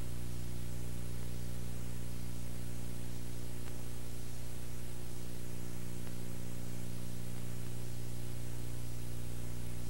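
Steady electrical hum with several evenly spaced overtones, under an even hiss, with no change throughout: noise of the recording itself rather than any event.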